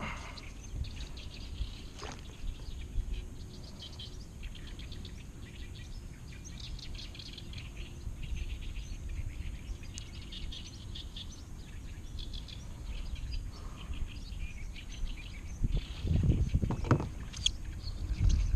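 Small birds chirping and singing over a steady low rumble. Near the end, a louder rustle and swish as a fishing rod is cast.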